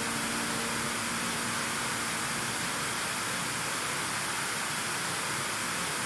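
A waterfall plunging into a pool: a steady, even rush of falling water.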